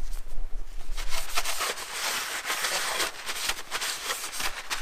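A cloth rag rubbed quickly back and forth over the metal surface of a milling machine, starting about a second in: degreasing the face before the feed gearbox is refitted.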